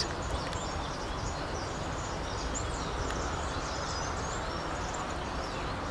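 Steady outdoor background noise with many faint, short, high-pitched bird chirps scattered through it.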